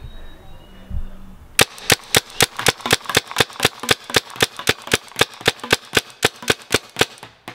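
Fully automatic paintball gun firing a long, evenly spaced string of sharp pops, about five shots a second. The string starts about a second and a half in and stops just before the end.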